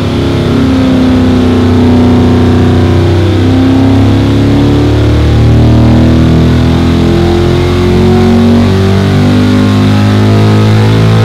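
Oversquare 329 cubic-inch small-block Chevy V8 (a 400 block with a 283 crankshaft) at full throttle under load on an engine dyno, its pitch rising steadily as it pulls from below 5,000 to about 6,500 rpm.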